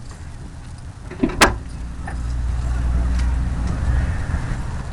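Onboard-camera audio from an RC model airplane: a steady low rumble of air buffeting the camera, swelling in the second half, with one sharp knock about one and a half seconds in.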